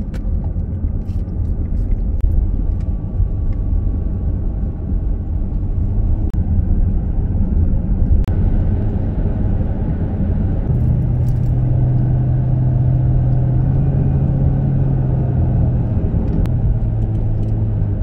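Minivan driving on a winding road, heard from inside the cabin: a steady low rumble of engine and tyre noise. A steady low drone comes in about eleven seconds in and holds.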